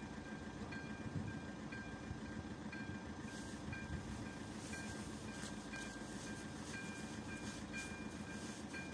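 AŽD 97 level-crossing warning signal's electronic bell ringing, a steady high ding repeating evenly while the crossing is closed. From about three seconds in, a hissing, crackling noise joins it.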